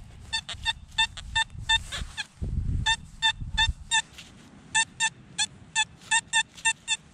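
XP Deus metal detector sounding short, same-pitched beeps, a few a second in groups, as its X35 coil is swept back and forth over a strong target reading a solid 93. The target is a large old tin can. A brief low rumble comes about two and a half seconds in.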